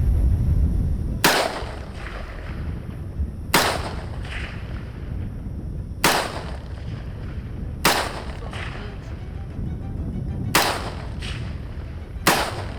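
Six rifle shots from a semi-automatic rifle, fired one at a time about one and a half to two and a half seconds apart. Each shot is followed by a fainter echo, and background music plays underneath.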